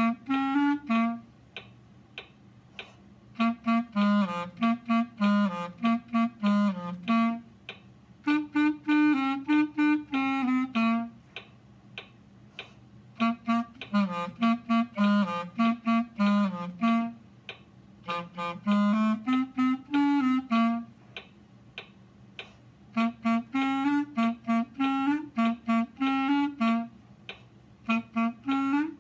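Solo clarinet playing the clarinet part of a boogie tune in its low register: phrases of short, separated notes, each a few seconds long, with pauses of a second or two between them.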